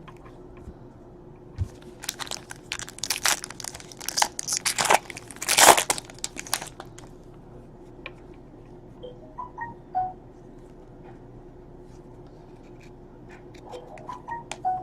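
Trading card pack wrapper being torn open and crinkled. The crackling comes in a run of sharp rustles from about two seconds in to about seven seconds in, loudest near the end of the run, then only a few faint ticks.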